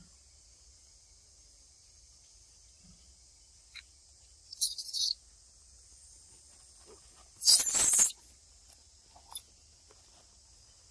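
Steady high insect chorus buzzing throughout, broken by two short loud bursts of sound, about four and a half and seven and a half seconds in, the second the louder.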